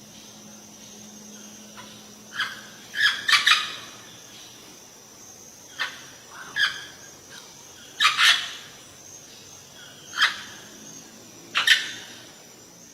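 Parrot giving a series of short, loud squawks, some single and some in quick pairs, a second or two apart.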